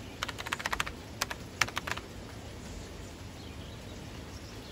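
Rapid, irregular keyboard typing clicks for about two seconds, then a steady outdoor background hiss.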